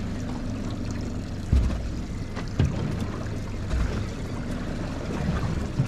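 Steady boat-at-sea noise, with wind and water against the hull, broken by a few short low thumps.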